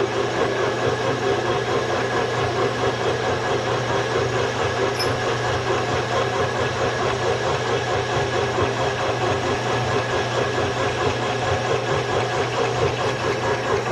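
Boring head turning in a machine spindle, cutting out a worn hole in a steel plate on its first pass: the machine runs steadily with a constant hum under the cutting noise.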